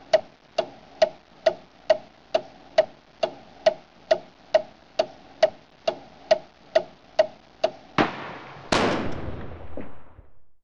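Clock ticking steadily, a little over two ticks a second. About eight seconds in it gives way to a sharp bang and then a loud crash of shattering glass that dies away over about two seconds.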